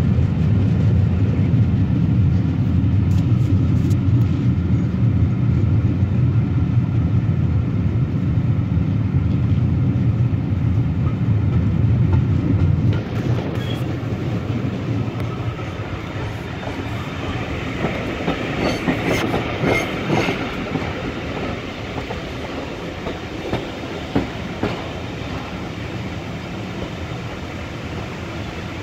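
Passenger train running, heard from an open coach window: a loud low rumble of wheels on rail with clickety-clack. About halfway through the rumble drops away. A brief higher-pitched wheel squeal comes about two-thirds of the way through, and a few sharp clicks follow.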